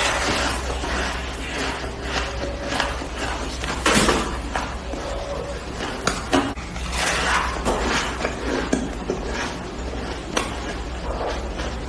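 Packed shaved ice being bitten and chewed, a run of crisp crunches one after another, the loudest about four seconds in.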